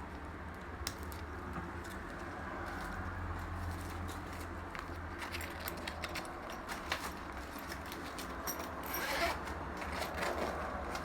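Handling noise from a fabric backpack: scattered light clicks and rustling, with a longer scrape or rustle near the end, over a steady low hum.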